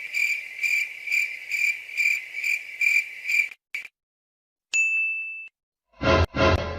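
Cricket chirping, used as a comedy sound effect: a steady high trill pulsing about twice a second for three and a half seconds. Then a click, and a single short ding with a sharp start about five seconds in.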